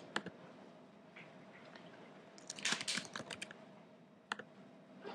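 Typing on a computer keyboard: a quick run of keystrokes about two and a half seconds in, with a few single clicks before and after.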